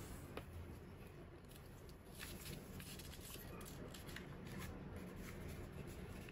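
A sheet of origami paper rustling and crackling as it is lifted, folded over and pressed flat by hand. There is a sharp click about half a second in and a flurry of short papery rustles through the middle.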